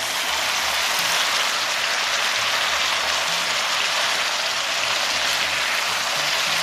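Pork, onions and bell peppers sizzling steadily in a hot cast-iron skillet.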